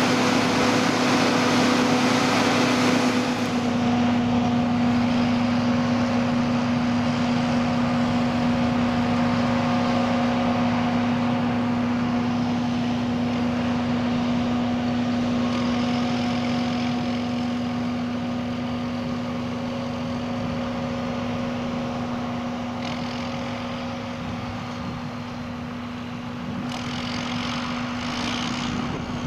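John Deere 7950 self-propelled forage harvester running steadily at working speed, a constant drone with a high hum. It is close and full of hiss for the first few seconds, then more distant after a cut about three and a half seconds in, fading gradually.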